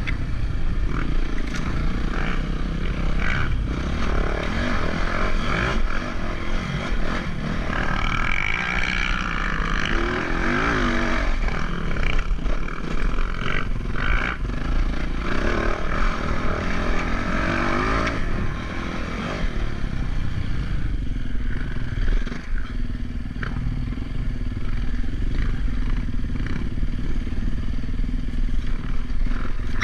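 A motor vehicle engine running with a steady low rumble, its pitch rising and falling a few times.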